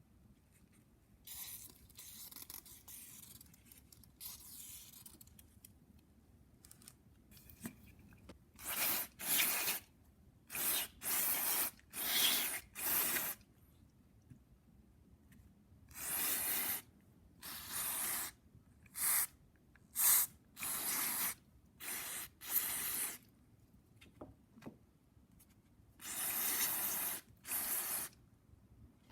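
Short hissing sprays directed into a brush cutter carburetor to clean out its passages. About fifteen blasts, each under a second, come in clusters, with softer hissing near the start.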